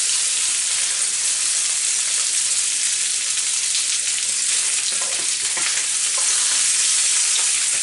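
Beef mince patties frying in olive oil in a ridged grill pan: a steady, dense sizzle. A few light taps and scrapes of the spatulas on the pan come as the patties are turned, about five seconds in.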